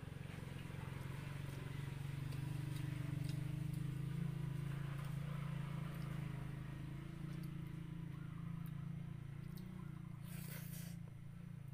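A low engine hum that swells over the first few seconds and slowly eases off, with faint clicks of eating by hand.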